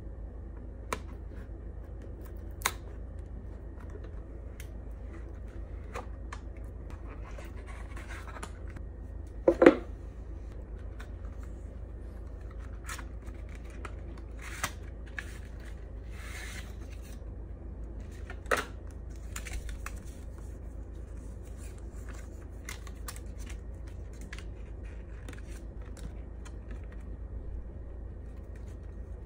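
Hands working the cardboard and plastic packaging of a Samsung Galaxy S10 Plus box: the seal stickers are slit or peeled, the lid slides off and a clear plastic case and paper inserts are handled. This gives scattered sharp clicks and taps, the loudest a little under ten seconds in, and short stretches of rustling and scraping over a steady low hum.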